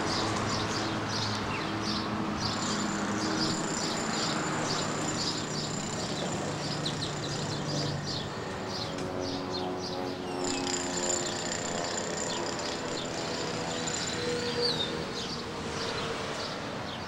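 Road traffic running on the road below, with vehicle engines changing pitch as they pass. Over it come repeated short, high bird chirps.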